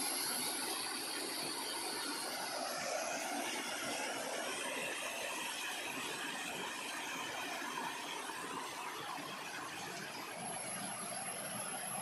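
Small waterfall cascading down a sloping rock face: a steady rush of falling water.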